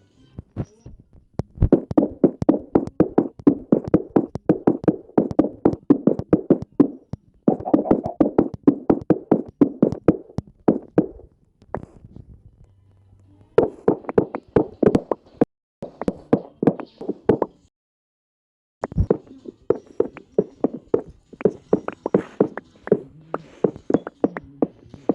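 A person snoring: a rattling train of pulses that comes in long stretches of a few seconds each, with short pauses between them.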